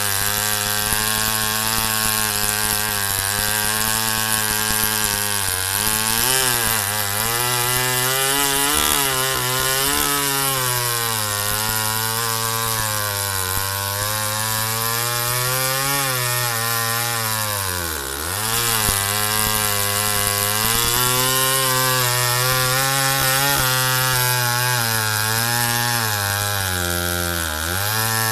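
McCulloch Pro Mac 700 two-stroke chainsaw running at high revs while cutting through a large log, the engine pitch wavering with the load. The revs dip sharply twice, about two-thirds of the way through and again near the end.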